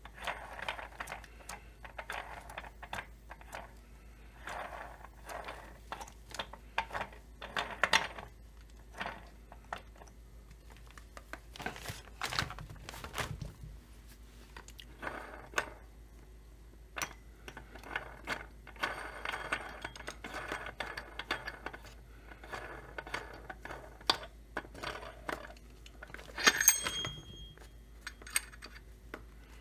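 Small metal parts of a chainsaw's clutch side being handled and worked loose on a bench: scattered clicks, clinks and light rattles, with one sharp, ringing metal clank near the end.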